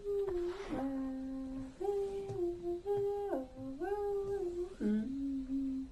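A single high voice humming a slow, simple melody, stepping back and forth between a higher and a lower held note in short phrases. A brief breathy hiss comes about half a second in.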